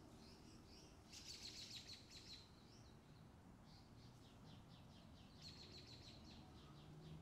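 Faint bird calls: a rapid, high chittering trill about a second in, a run of separate chirps around four seconds, and another rapid trill just past five seconds.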